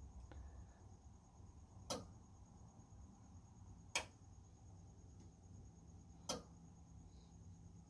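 Contactor in an electric-car conversion, switched by a Zilla Z2k controller, clicking three times about two seconds apart as the controller cycles it. The controller is reporting error 1141, "Main Contactor High Resistance", because the car's main battery breaker is still switched off.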